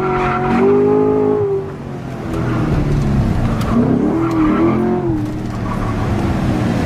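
A car's engine revving up and down while its tyres squeal as it slides sideways through a turn in a drift, the pitch of the sound rising and falling.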